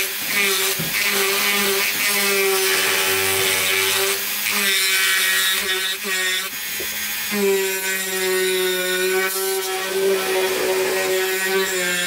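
Dremel 4000 rotary tool on its flexible-shaft extension, a wide milling bit cutting into wood: a steady high-speed motor whine with a grinding rasp, the tone faltering briefly a few times as the bit bites in.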